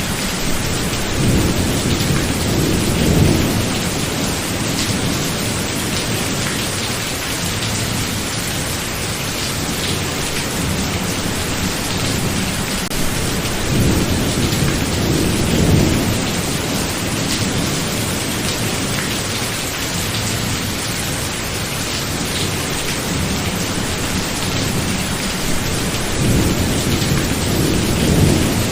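Steady heavy rain, with low rolls of thunder rumbling three times: about a second in, midway, and near the end.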